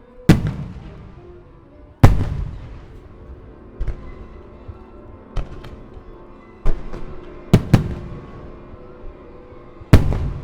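Aerial firework shells bursting: about eight sharp booms at uneven spacing, the loudest about two seconds in and near the end, each trailing off, over the display's accompanying music.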